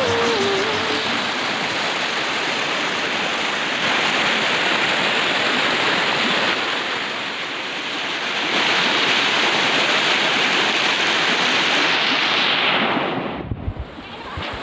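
Waterfall: a steady rush of falling water that swells and eases every few seconds. It dips briefly near the end with a few low thumps.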